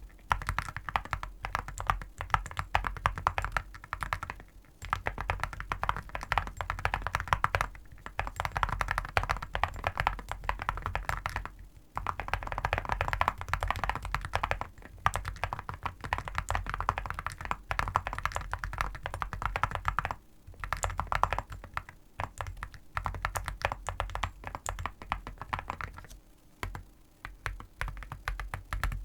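Typing on a mechanical keyboard fitted with full-metal keycaps: fast runs of key presses, each stroke a sharp clack with a metallic edge, broken by brief pauses.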